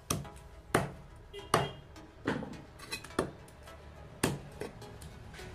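Heavy cleaver chopping mrigal fish pieces on a wooden log chopping block: a series of sharp chops, a little more than one a second.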